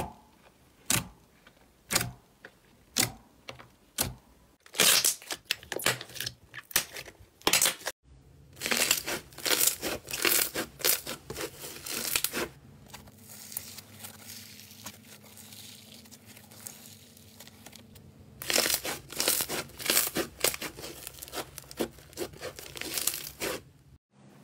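Slime being pressed and squeezed by hand. First a thick glossy slime gives sharp pops about once a second, which come faster after a few seconds. Then foam-bead slime crunches and crackles densely as it is kneaded, easing off for a while and coming back strong near the end.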